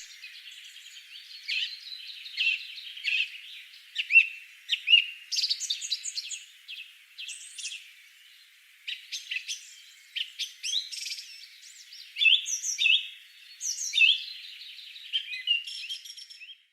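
A chorus of small birds chirping, with many short, overlapping rising and falling calls. The sound is thin, with no low end, and cuts off abruptly near the end.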